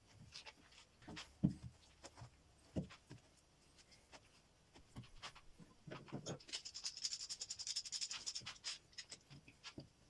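Hands handling a heavy wooden block at the lathe: scattered knocks and taps, with a louder thump about a second and a half in. Later comes a couple of seconds of rapid clicking as a bar clamp is fitted to the block.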